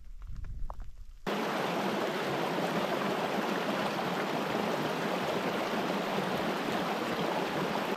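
Mountain stream rushing over rocks, a steady, even water noise that starts suddenly a little over a second in; before it, only a faint low rumble.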